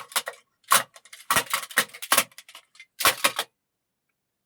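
Foley props being struck and shaken for a take: a run of sharp clattering hits in quick clusters, about seven in three and a half seconds, then they stop.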